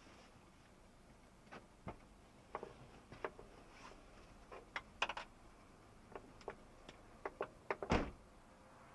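Faint, irregular clicks and small knocks inside a moving car's cabin, with a louder, deeper thump about eight seconds in.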